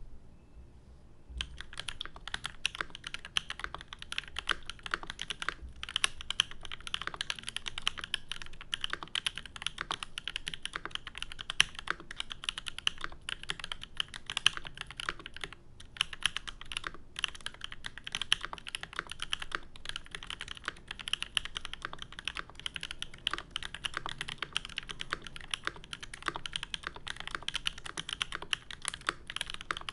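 Fast, continuous typing on a custom mechanical keyboard: a Volcano660 Reborn with a brass full plate and no foam, lubed linear switches with 8008 Ink housings and Raed stems, and GMK keycaps. The typing starts about a second and a half in and runs as a dense stream of keystrokes with only a few brief pauses.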